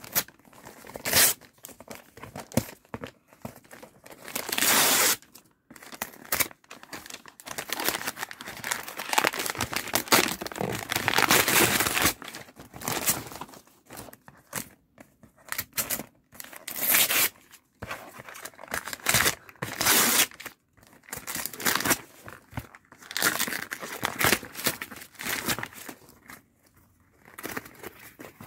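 Gift wrapping paper being torn off by hand and crumpled, in repeated rips and rustles, some short and some drawn out.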